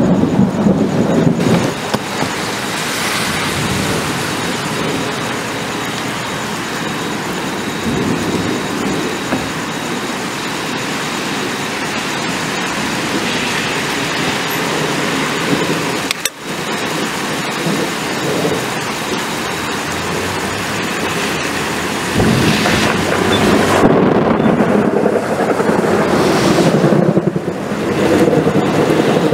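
Thunderstorm: steady heavy rain, with rolling thunder rumbling at the start and again in the last third.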